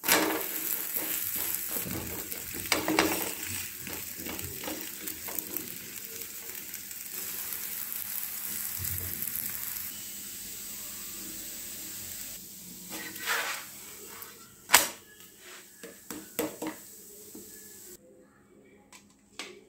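Adai sizzling in oil on a hot dosa tawa, a steady hiss for about twelve seconds. Then come a few sharp knocks and scrapes as the crisp adai is taken off the pan, and the sizzle fades out near the end.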